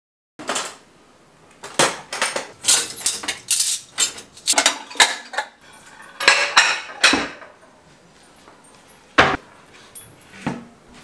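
Ceramic plates and cutlery clinking and clattering in a quick run of sharp knocks as a dishwasher is unloaded and plates are stacked into a cupboard. A single sharp knock of a wooden cabinet door shutting comes about nine seconds in, with a lighter knock near the end.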